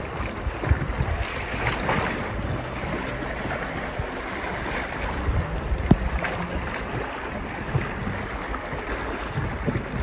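River current rushing and slapping against an inflatable raft while it is paddled, with wind buffeting the microphone. There are a few sharp paddle splashes, the strongest about six seconds in.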